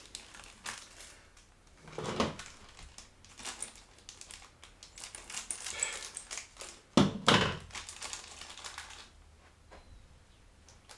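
Scattered clicks, taps and knocks of computer parts and hardware being handled during a PC build, with louder knocks about two seconds in and again about seven seconds in.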